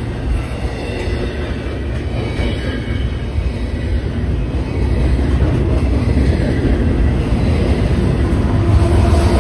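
Double-stack container cars of a freight train rolling past close by: a steady low rumble with wheel-on-rail noise, getting louder in the second half.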